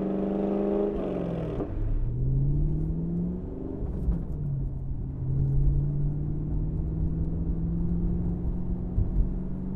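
Chevrolet Camaro SS 6.2 L V8 running through a Borla ATAK cat-back exhaust with X-pipe. It is heard first from outside at a steady rumble around 3,000 rpm, then from inside the cabin under throttle. The pitch falls away, rises, drops back, then climbs slowly.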